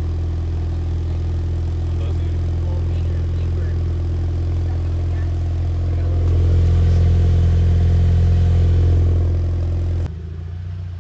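Scion FR-S's flat-four engine idling through a newly installed MXP Comp RS cat-back exhaust, a steady low drone. It swells a little louder for a few seconds, and the level drops suddenly near the end.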